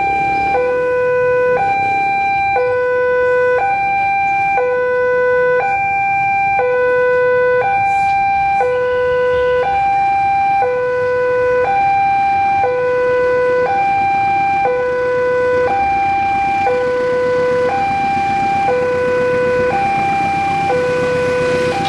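Stationary two-tone electronic railway warning alarm sounding continuously, alternating a higher and a lower note, each held about a second, with a steady pitch. It warns of an approaching train.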